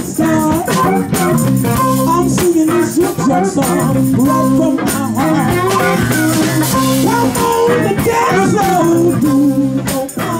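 Live electric blues band playing a steady groove with bass and guitar, a hand tambourine shaken along with the beat, and a woman singing into a microphone.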